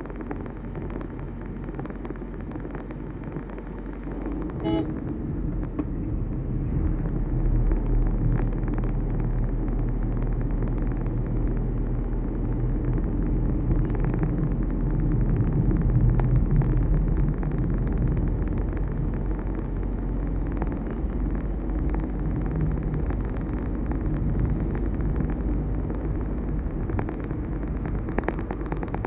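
A vehicle driving along a road: a steady low rumble of engine and road noise that grows louder about five seconds in, with a brief pitched tone, like a short horn toot, about five seconds in.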